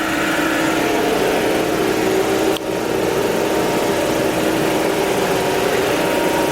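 Car wash vacuum running: a steady motor hum with a hiss of rushing air, dipping briefly once about two and a half seconds in.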